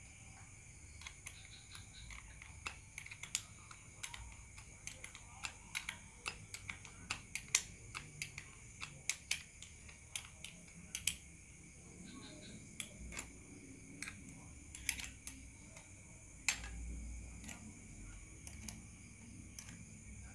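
Irregular light clicks and taps of small parts and hand tools being handled while working on a starter motor. The clicks come several a second in the first half and thin out later, over a faint steady hum.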